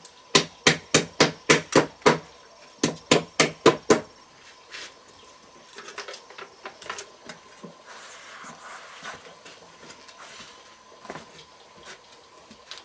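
Hammer blows on a bamboo frame: a quick run of about eight strikes at roughly four a second, a short pause, then five more. Lighter taps and handling noise follow.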